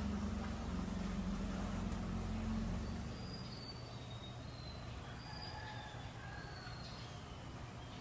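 A low steady hum fades out about three seconds in. After that come faint bird chirps: short, high whistles repeating several times.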